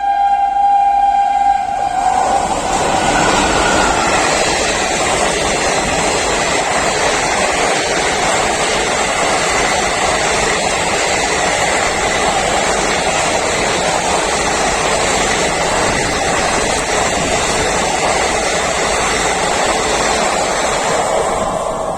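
An express train's horn sounds for about the first two seconds, then gives way to the loud, steady rush of the train passing close by at speed. The rush eases near the end.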